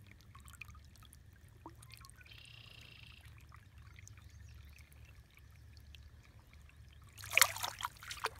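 Faint trickle of stream water around a hand holding a brown trout in the current, then loud splashing about seven seconds in as the trout is released and swims off.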